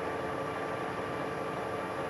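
1972 Weiler Matador SV lathe running steadily at low spindle speed in back gear, a constant hum with a faint steady whine.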